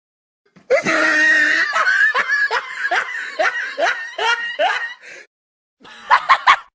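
Person laughing, a meme sound-effect clip: a long run of loud laughs, each syllable falling in pitch, then, after a short pause, a brief quicker burst of laughter near the end.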